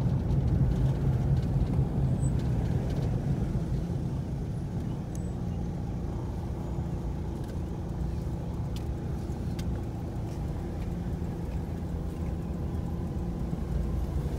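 Car engine and road noise heard from inside the cabin of a car crawling in slow traffic: a steady low rumble, with a few faint ticks.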